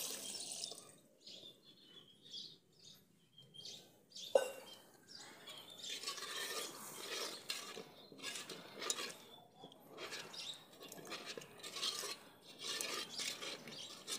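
Milk poured into a brass pot of rice, then a steel ladle stirring, clinking and scraping against the brass pot, with one sharp clink about four seconds in.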